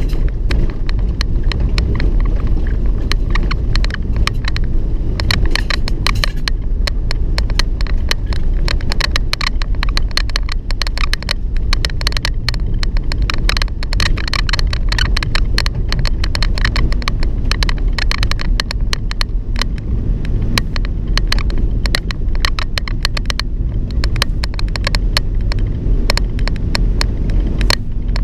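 Steady low road and engine noise of a moving vehicle, overlaid with constant rapid clicking and squeaking from the vehicle's door rattling against the microphone.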